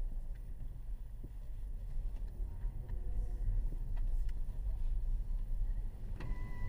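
Low, steady rumble of a car's engine and tyres heard from inside the cabin as the car rolls slowly forward, with a few faint small clicks.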